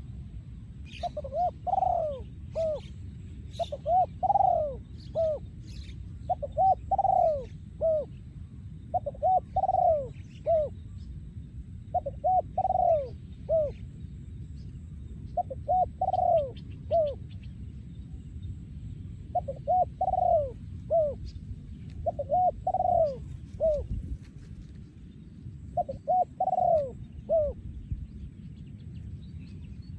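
Male spotted dove cooing: about nine phrases of three or four low coos each, one every three seconds or so. Faint chirps of small birds sound higher up, mostly in the first half, over a steady low background noise.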